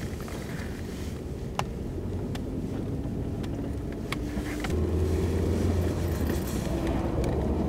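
Car driving on a snowy road, heard from inside the cabin: a steady engine and tyre rumble whose pitch climbs as the car speeds up, growing louder about five seconds in. A few faint clicks sound over it.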